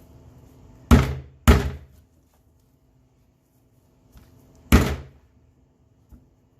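Hammer blows driving an axle hat push nut onto the end of a wooden dowel rod: two sharp strikes about half a second apart about a second in, then a third near the end.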